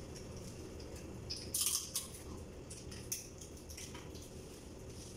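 Crab shells cracking and crackling as they are picked apart by hand, in scattered small sharp cracks with a louder burst about one and a half seconds in, over a steady low room hum.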